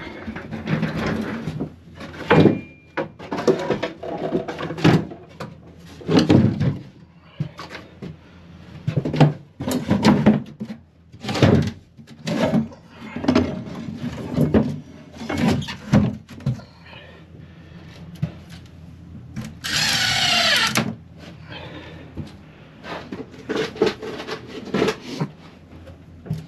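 Irregular knocking and clattering of wooden hole covers and tools being handled on the fish house floor, with a cordless drill briefly driving a screw about twenty seconds in.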